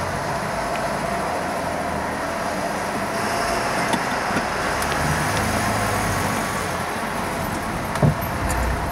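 Steady engine and road noise of a car, heard from inside its cabin, with a single thump about eight seconds in.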